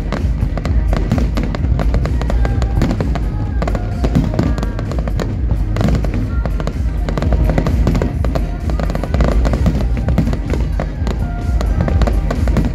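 Aerial fireworks bursting and crackling in rapid, dense succession, with deep booms underneath. The show's music plays along with them.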